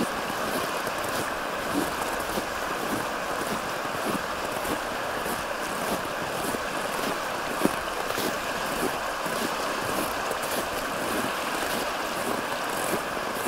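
Steady rushing of flowing stream water, with footsteps at a regular walking pace.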